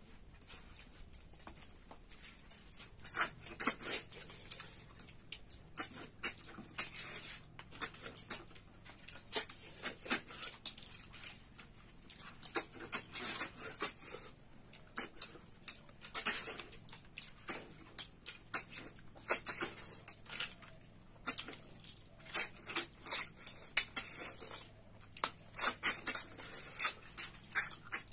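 Mouth sounds of eating snails by hand: many short, sharp sucks and slurps in irregular bursts as the snail meat is sucked from the shells, with smacking and chewing. They come more often from about three seconds in.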